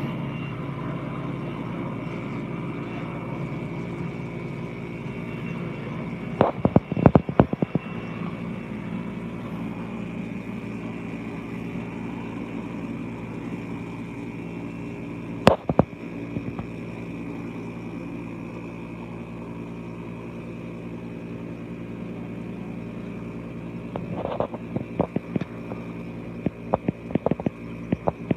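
PZL W-3 Sokol helicopter in flight, its twin turboshaft engines and rotor making a steady sound with a high whine. Clusters of sharp knocks come about seven seconds in, once around fifteen seconds, and repeatedly near the end.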